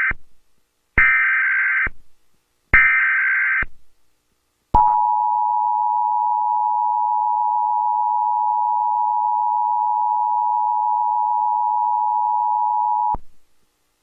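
Emergency Alert System test tones. First come short raspy digital SAME header data bursts: the end of one and two more, about two seconds apart. Then the steady two-tone EAS attention signal sounds for about eight seconds and cuts off.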